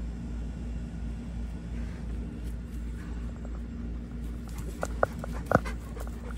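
Steady low mechanical rumble with a faint hum. About five seconds in comes a quick run of sharp clicks and knocks, the loudest a single knock.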